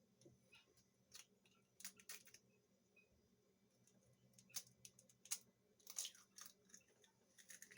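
Faint, scattered small taps and clicks, a dozen or so spread over several seconds, from an egg being cracked and its shell handled over a mixing bowl.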